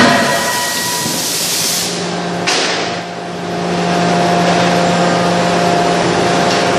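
Forging-line machinery: a sharp metal impact right at the start, a short burst about two and a half seconds in, then a steady loud hiss over a low machine hum.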